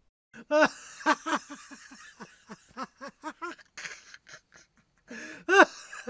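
Stereo test sound played through both left and right channels: a rapid, irregular run of short pitched calls, each rising then falling in pitch, over a breathy hiss, with a brief pause about five seconds in.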